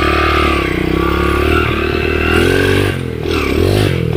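Underbone motorcycle's small single-cylinder engine running under throttle while riding, its pitch rising and falling. About three seconds in it drops briefly and then picks up again.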